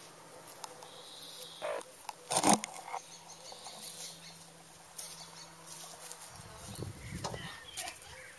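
Hens moving about right at the camera: a few sharp taps and scuffs, the loudest about two and a half seconds in, with some rustling later, over faint outdoor background.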